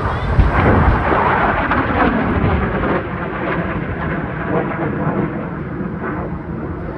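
Military jet aircraft roaring past low at an air show, a deep rumbling roar loudest about a second in that then carries on steadily as it moves away.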